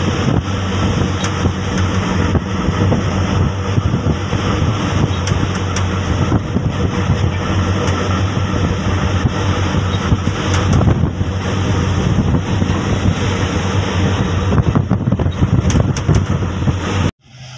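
A boat's engine running with a steady low drone, under heavy wind buffeting the microphone; the sound cuts off suddenly near the end.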